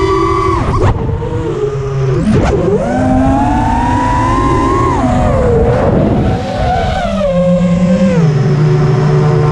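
Four brushless motors of a 5-inch FPV racing quadcopter (Lumenier 2206 2350KV on HQ 5040 three-blade props) whining as they spin, heard from the onboard camera. The pitch rises and falls repeatedly with throttle, with several quick drops and climbs, over wind rush on the microphone.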